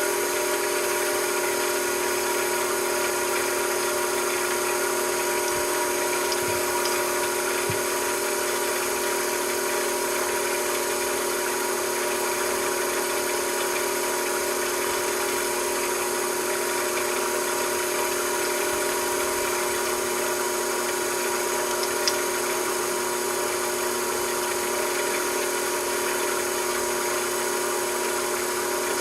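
A machine tool running steadily with a constant motor hum and whine, with one brief tick about 22 seconds in.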